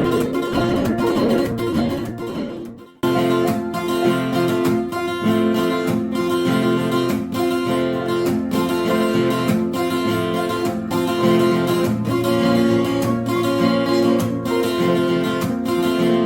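Acoustic guitar being strummed and played by a beginner. About three seconds in the sound cuts off abruptly, then resumes with steadier held notes.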